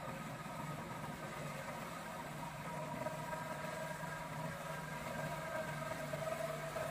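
John Deere 958 tractor's diesel engine running steadily while it powers a tractor-mounted corn-straw harvester, growing slightly louder toward the end.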